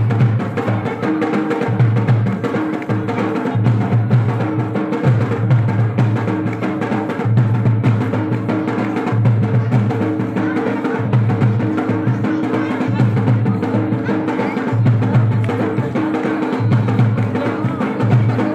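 Loud drum music: deep drum beats in a steady repeating rhythm under held melodic tones.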